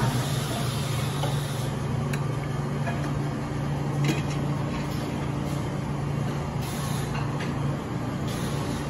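Steady low mechanical hum under an even hiss, with a few faint clicks: the room noise of a restaurant buffet.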